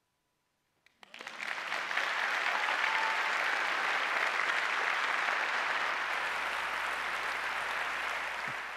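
Audience applauding: it starts about a second in, quickly swells to a steady, dense clapping and holds there.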